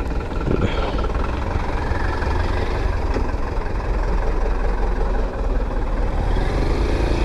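Motorcycle engine running steadily while riding, with low wind rumble on the microphone.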